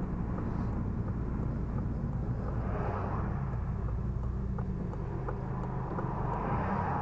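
Honda Civic Si's K20Z3 2.0-litre four-cylinder engine and tyre noise heard from inside the cabin, a steady low hum as the car slows to a near stop.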